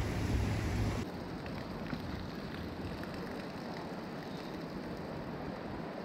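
Steady rush of a creek running high after rain. Until about a second in, wind buffets the microphone with a low rumble, then it suddenly drops away, leaving only the water.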